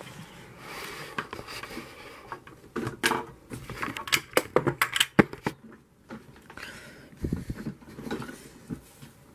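Handling noise as a camera is picked up and moved by hand: a string of sharp clicks and knocks with rustling, busiest in the middle, and a dull low thump near the end.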